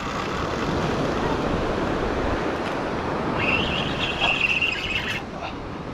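Surf washing onto a beach, with wind buffeting the microphone. A little past the middle comes a high, rattling sound lasting about two seconds.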